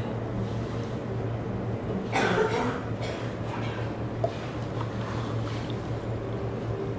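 Café background with a steady low machine hum, a brief burst of noise about two seconds in, and a sharp click just after four seconds.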